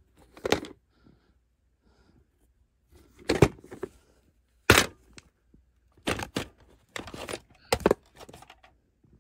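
Plastic clamshell VHS case being handled and opened to take the cassette out: a handful of sharp plastic clicks and knocks with short quiet gaps between them.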